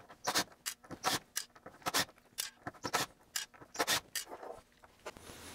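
Cordless driver backing out a lid full of small machine screws from a metal housing: a quick, irregular run of short clicks and clatters, roughly three or four a second.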